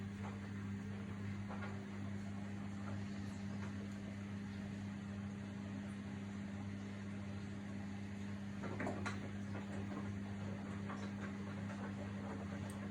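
Samsung WW80TA046AX 8 kg front-loading washing machine running with a steady low hum and scattered clicks and knocks, a louder knock about nine seconds in: the horrible noise the machine is making.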